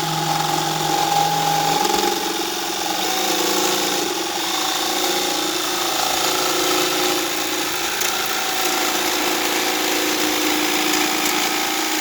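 DeWalt cordless jigsaw running and cutting through wood, a steady buzzing saw note with a rough rasp from the blade; the pitch shifts about two seconds in.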